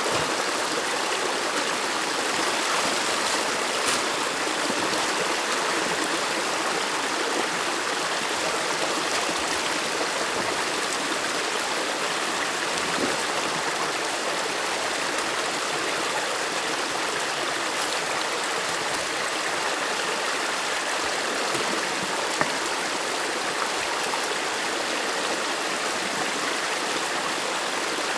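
Stream water rushing steadily at a beaver dam, with a couple of faint brief taps.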